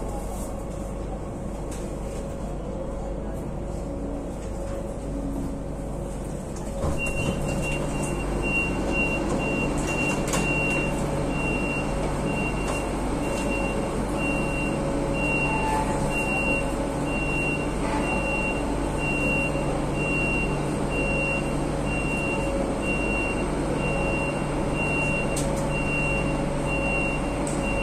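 Madrid Metro Line 9 train running, a steady rumble and hum. About seven seconds in the noise gets louder and a high electronic beep starts repeating in short, even pips.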